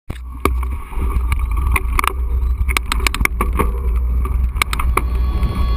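Full-suspension mountain bike descending a rough dirt trail, heard from an action camera mounted on the rider or bike. Heavy wind rumble on the microphone runs under repeated sharp rattles and knocks as the bike hits bumps.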